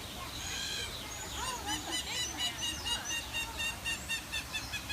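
Birds calling in an aviary: a few short calls, then from about a second and a half in a rapid, even series of sharp high calls, about four or five a second.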